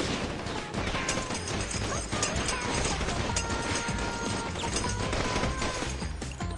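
Film sound effects of a volley of pistol gunfire: a dense stream of sharp shots and metallic clicks, heaviest in the first second and then thinning, with short ringing pings among them.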